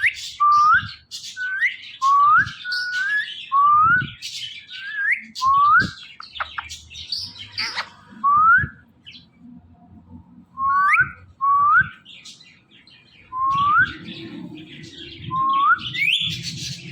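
Indian ringneck parakeet giving short rising whistles, about one a second, mixed with sharper chirps, with a pause of a few seconds in the middle.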